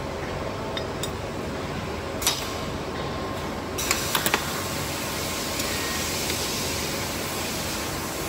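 Clamps on a steel welding jig being set, over a steady workshop hum. There is a single sharp click about two seconds in and a quick run of clacks around four seconds in. A hiss then comes in and holds for several seconds.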